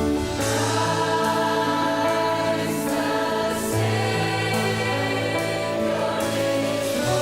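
Choir singing a Christmas worship song over instrumental accompaniment, with long held notes above a steady bass line.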